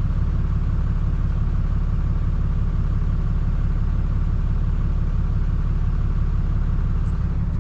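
Ram 2500 pickup's engine idling: a steady, even low rumble.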